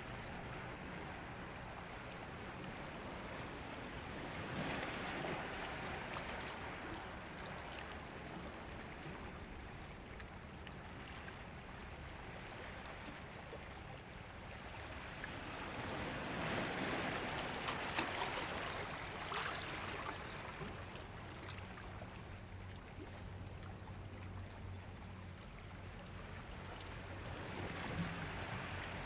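Ocean waves washing in and out on a shore, a steady hiss of surf that swells with a larger wave about five seconds in, again around seventeen seconds, and once more near the end.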